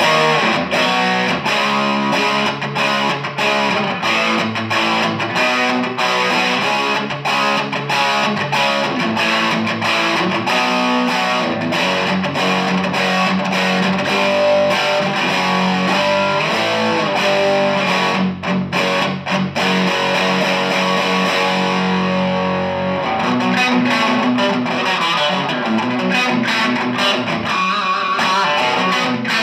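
Electric guitar played through the Dynamo Flight Rig's all-tube preamp on its crunch setting, an overdriven rock tone of rhythmic chords and riffs. About midway a low chord is let ring for several seconds before the riffing picks up again.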